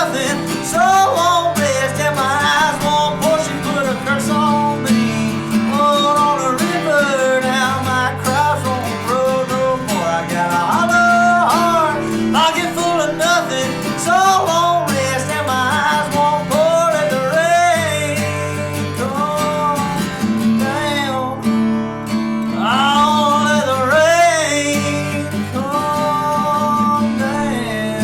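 Acoustic guitar music, strummed steadily, with a bending melody line over it, dipping briefly about three quarters of the way through.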